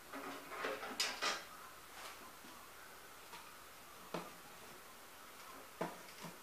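Hands working a brass vapor-pressure lantern: light rustling and metallic clicks as its control rod and glass globe are handled, with two sharp clicks about a second in and single clicks at about four, six and six and a half seconds.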